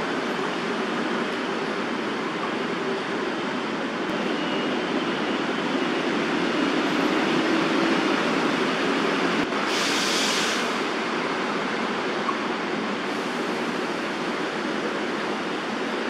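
Steady rush of distant city traffic, swelling a little in the middle, with a short burst of brighter hiss about ten seconds in.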